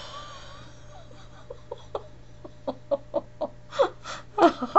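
A man's wheezy, breathy chuckling laughter: short quiet bursts that grow longer and louder near the end.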